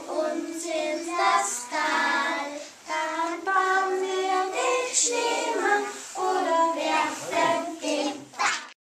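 A group of young children singing a song together, their voices stopping abruptly near the end.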